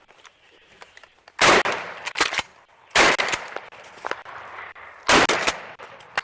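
Three shotgun shots fired at a coyote, about a second and a half and then two seconds apart, each loud and sharp with an echoing tail.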